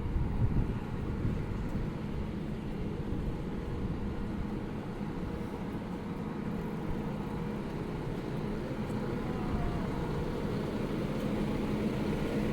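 Steady low rumble of street background noise with a faint constant hum.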